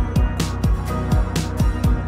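Background music: an electronic pop track with a steady beat of deep kick drums, sharp percussion hits and a held bass line.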